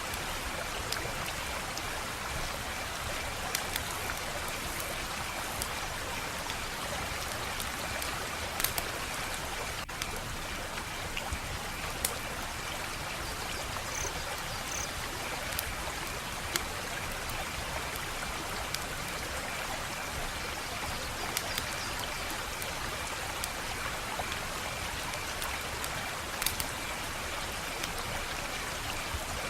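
Wood fire crackling: a steady hiss with sharp pops scattered every second or two, a few louder ones among them.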